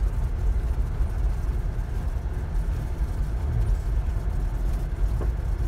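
Steady low rumble of a vehicle driving slowly on a gravel dirt road, heard from inside the cab: engine and tyre noise.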